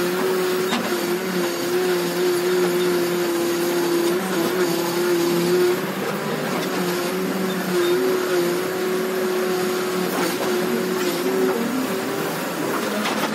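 Case 580 Super R backhoe loader running as its backhoe digs: a steady engine and hydraulic hum that wavers slightly in pitch now and then, with a few faint knocks.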